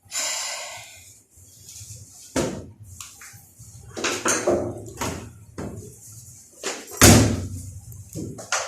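A series of knocks and clatters from parts of the washing machine being handled, the loudest about seven seconds in, with a short hiss at the start.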